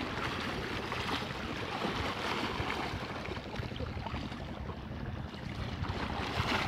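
Steady wind buffeting the microphone and water noise on a small boat at sea, over a low rumble.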